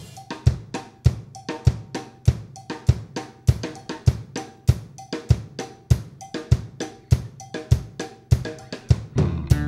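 Drum kit played alone in a steady rock groove: bass drum, snare and cymbals striking at an even beat. Just before the end other instruments come in.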